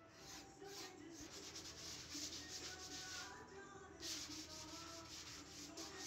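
An unglazed clay wash basin being sanded by hand: quick scratchy rubbing strokes, about three a second, with a brief pause about three and a half seconds in.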